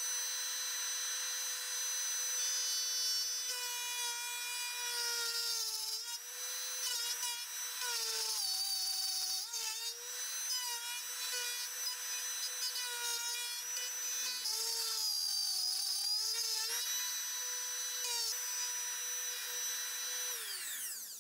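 Small handheld wood router running at speed with a steady whine. Its pitch dips briefly each time the bit bites into the wood as it cleans up the ends of a guitar body cavity. Near the end the motor is switched off and winds down.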